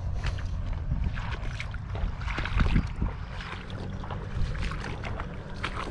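Water splashing with irregular knocks and clatters over a low steady rumble, the busiest stretch about two and a half seconds in.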